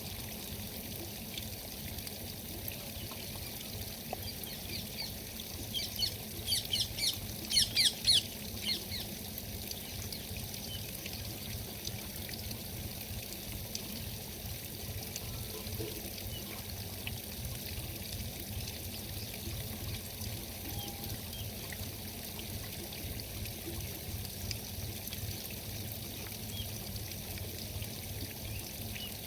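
Steady rushing noise like flowing water, with a quick run of sharp high chirps or clicks about six to nine seconds in.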